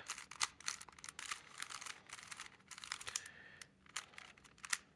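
Rubik's Cube being turned by hand: a quick, irregular run of plastic clicks and short scraping turns as the layers are twisted through setup moves and a swap algorithm.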